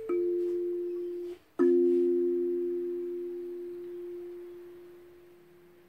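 Homemade sanza (kalimba) on a calabash gourd resonator, tuned to a C minor scale: one metal tine plucked and cut off after about a second and a half, then two tines plucked together that ring long and fade away slowly.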